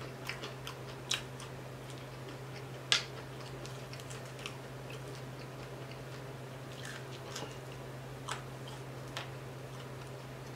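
Chewing and biting crispy fried tilapia: scattered short, sharp crunches and mouth clicks, the loudest about three seconds in.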